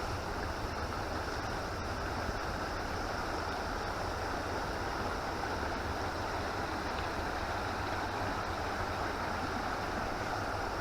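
Steady rush of river water flowing over rocks, with a low rumble underneath.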